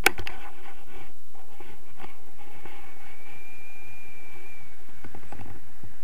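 Muffled wind rush on a camera's microphone in flight under a tandem paraglider. A few sharp clicks at the start, and a faint high steady tone for about two seconds midway.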